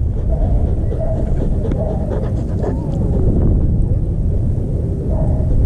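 Husky panting right against the microphone, over a heavy low rumble on the mic.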